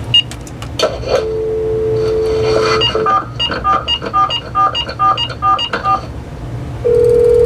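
AT&T 5655 cordless phone line being dialed: a click, then a steady dial tone for about two seconds. About ten touch-tone keypad beeps follow in quick, even succession, and near the end a steady ringback tone sounds for about two seconds as the called line rings.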